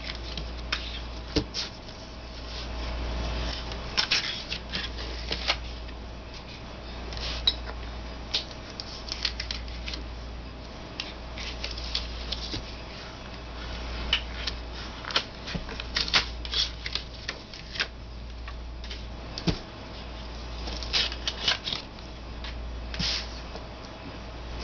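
Sheets of cardstock being peeled and lifted off a sticky cutting mat by hand: irregular paper crackles and sharp snaps, scattered unevenly throughout.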